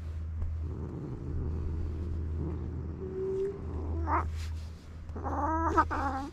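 Irritated white cat vocalising: a low wavering growl, a short rising cry about four seconds in, then a drawn-out yowl near the end.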